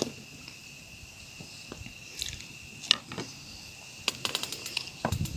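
A steady high insect trill runs on unbroken, with scattered short clicks and light knocks over it, a quick run of them about four seconds in.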